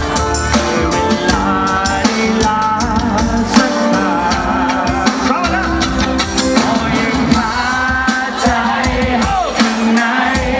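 Live pop-rock song: a male vocalist sings in Thai into a handheld microphone over loud amplified music with a steady drum beat.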